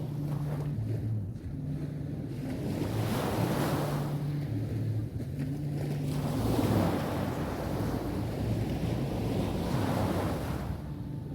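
Sea waves breaking and washing up a beach, the surf swelling about three times, with wind buffeting the microphone. A low droning hum runs underneath.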